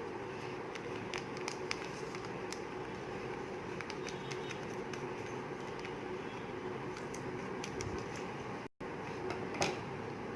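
Steady low background hum with a faint constant tone, broken by a few light clicks.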